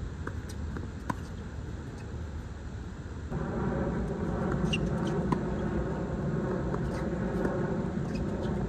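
Tennis ball struck by rackets during a doubles rally: sharp pops at uneven intervals. Underneath is a steady low rumble that grows suddenly louder about three seconds in.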